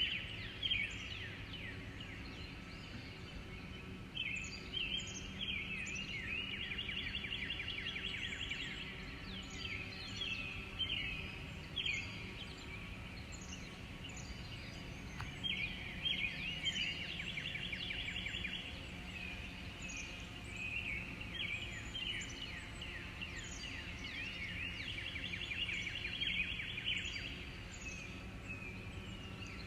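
Birds singing: repeated bursts of fast trilled, chirping phrases every few seconds, over a steady low hum.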